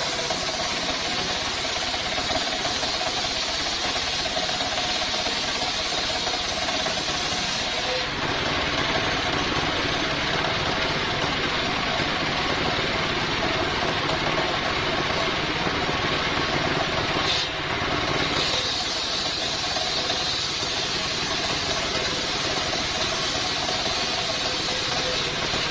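Homemade circular saw bench driven by a single-cylinder stationary diesel engine, running steadily while its blade rips coconut-palm timber into planks. The high cutting hiss drops away for about ten seconds in the middle while the board is repositioned, then comes back as the blade bites into the wood again.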